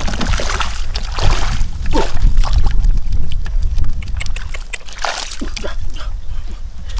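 Water splashing and sloshing in shallow water, irregular and continuous, as someone wades and works through it while fishing.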